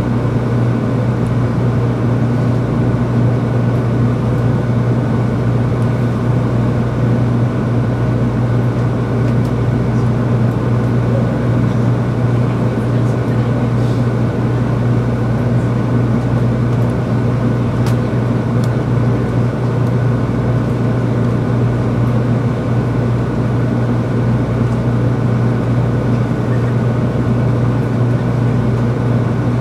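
Steady running noise inside a motor car of a 300 series Shinkansen travelling at an even speed: a low rumble with a faint steady high tone above it.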